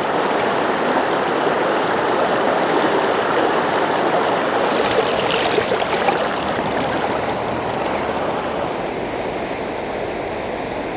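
River current rushing steadily over a rocky bed, the river running high after a typhoon, with a few brighter splashes about five to six seconds in.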